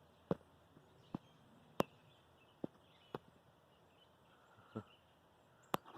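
About seven sharp, irregularly spaced clicks, the loudest about two seconds in, over a faint outdoor background.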